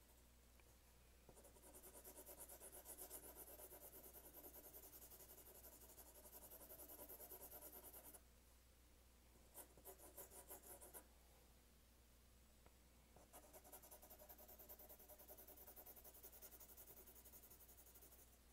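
4B graphite pencil shading on paper, faint: quick back-and-forth scratching strokes in a long run, a few short separate strokes about ten seconds in, then another long run. The strokes are darkening the black areas of a drawing.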